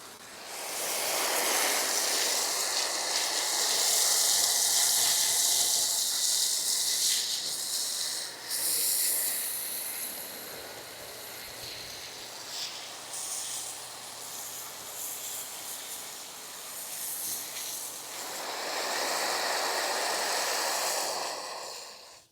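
Pressurised detailing jet hissing loudly in two long spells, the first about eight seconds, the second near the end, with a quieter hiss between; it cuts off sharply at the end.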